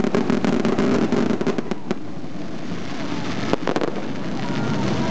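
Fireworks display: fast crackling volleys of sharp bangs through the first two seconds, then a brief second cluster of bangs about three and a half seconds in, over a steady background din.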